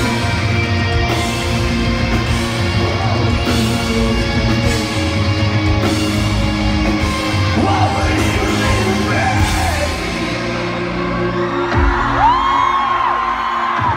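Heavy rock band playing live through a large venue sound system, heard from the crowd: pounding drums, distorted guitars and shouted vocals. About ten seconds in the full band thins out, and near the end a single high tone glides up and holds over the hall.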